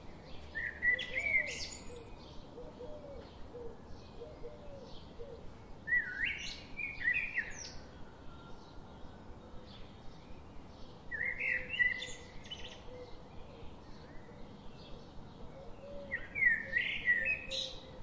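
Birds singing: a short phrase of quick, high gliding notes about every five seconds, four times, over a faint steady outdoor background.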